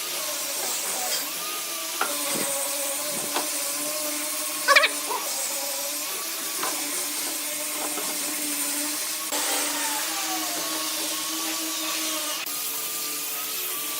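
A power tool working wood, its motor running steadily with a wavering whine. A short, loud, high-pitched squeal comes about five seconds in.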